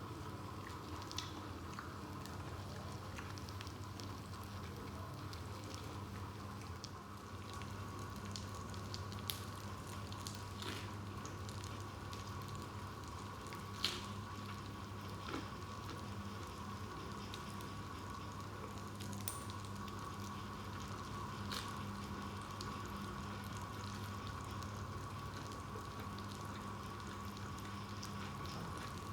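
Pork belly sizzling as it grills, a steady frying hiss with scattered sharp pops and crackles.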